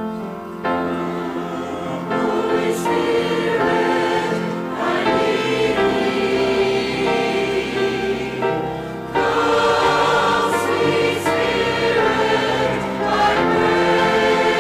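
A group of voices singing a hymn together with musical accompaniment, the singing coming in about a second in after an instrumental introduction.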